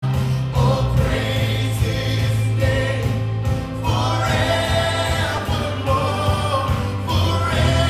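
Live gospel worship song: a man singing lead into a handheld microphone over a band with steady low electric bass notes, recorded through a camera's built-in microphone.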